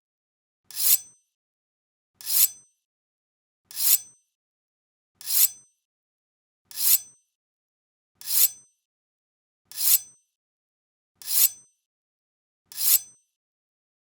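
A Japanese sword (katana) drawn from its scabbard over and over, nine draws about one and a half seconds apart. Each is a short rising metallic scrape of the blade that stops sharply with a faint ring.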